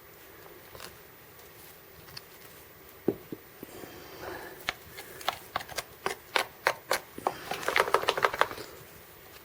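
Sharp clicks and light metallic knocks of small hardware being handled as old SPD cleats are unbolted from a cycling shoe with an Allen wrench. They start about three seconds in, come about three a second, and quicken into a fast rattle near the end.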